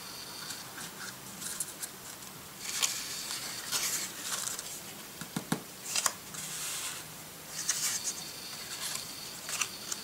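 Sheets of cardstock handled and slid across a tabletop: scattered rustling and scraping, with a couple of light taps a little past the middle.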